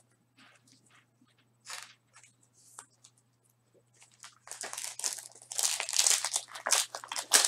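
Light handling clicks and short swishes, then from about four seconds in a dense crinkling and tearing of a trading-card pack's wrapper being opened and handled.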